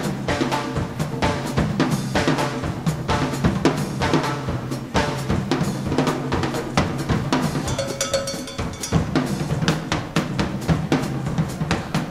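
Live dance band playing a Latin dance number, with drums and percussion to the fore in a steady, driving beat.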